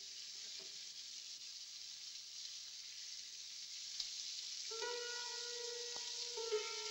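Faint steady hiss of an old film soundtrack; about two-thirds of the way in, a held note of background music enters, shifting once and carrying on.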